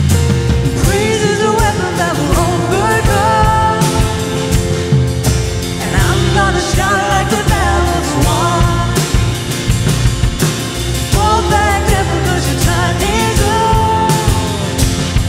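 Live worship band playing an upbeat pop-rock song with drums, keyboard and acoustic guitar, a woman singing the lead in English; a man's voice takes the lead near the end.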